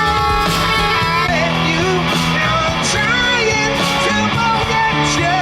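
Background music with guitar: held notes under a wavering melody.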